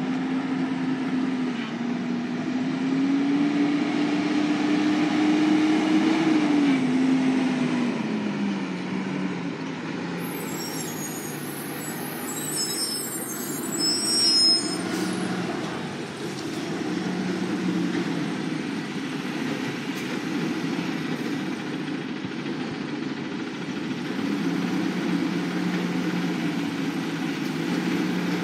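Garbage truck's engine running, its pitch climbing for the first several seconds and then dropping back to a steady lower running. Partway through come high, thin squeals and a short louder sound.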